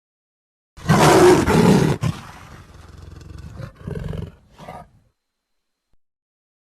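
Wolf sound effect of snarling and growling. A loud harsh snarl comes about a second in and lasts about a second, trailing into a lower rumbling growl, then two shorter snarls follow and it stops.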